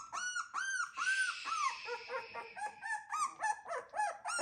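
Nearly three-week-old Miniature Schnauzer puppies whimpering: a run of short, high, arching cries, about two or three a second. A lower cry overlaps them for a moment about two seconds in.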